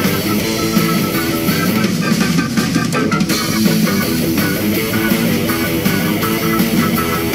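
Live band playing rock music led by electric guitar.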